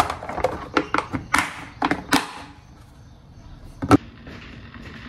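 Plastic lunch box lid pressed down and its side latches snapped shut: a quick run of plastic clicks and knocks, then a single sharp knock about four seconds in.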